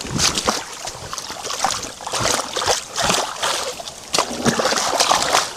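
Shallow pond water splashing and sloshing in irregular splashes, as a large softshell turtle is rinsed off in it.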